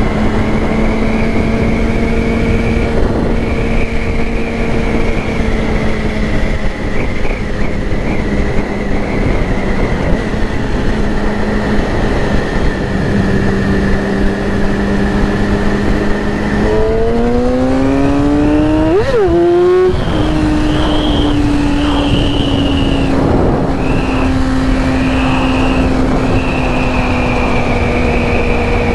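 Yamaha R6 inline-four sport bike engine running at a steady cruise under heavy wind noise, then revving up in a series of rising glides about two-thirds of the way through before settling at a higher, steady pitch.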